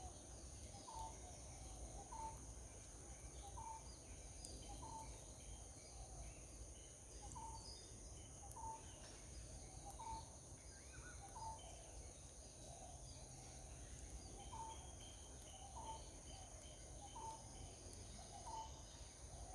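A bird repeating a short call about once a second, over insects shrilling steadily at two high pitches.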